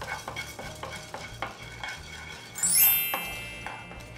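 Spatula stirring and scraping toor dal as it dry-roasts in a hot nonstick pan, with light clicks of the lentils moving over the pan. About three seconds in, a short rising electronic chime rings out and fades; it is the loudest sound.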